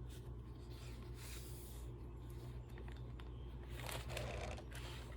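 Paper rustling and sliding as the pages of a handmade junk journal are handled and turned, in a few soft bursts, over a low steady hum.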